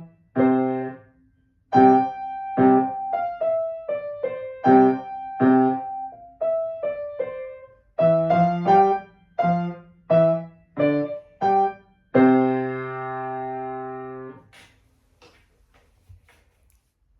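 A piece played on the piano: short detached chords and a stepping melody line, ending on a final chord that is held for about two seconds and then released. A few faint taps follow near the end.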